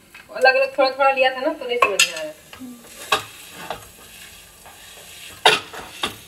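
Metal utensil stirring and pressing a sticky date and dry-fruit mixture in a stainless steel kadhai, with scraping and several sharp knocks against the pan. A voice is heard briefly in the first two seconds.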